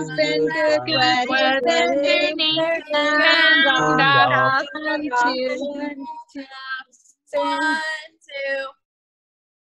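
Female voices singing a song, with low accompaniment notes under the first half. The singing breaks into short phrases toward the end and then stops.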